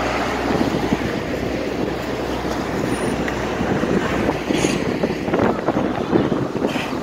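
Ferry boat's engine running with a steady low hum near the start, giving way after about half a second to an uneven rumble of wind buffeting the microphone on the open deck.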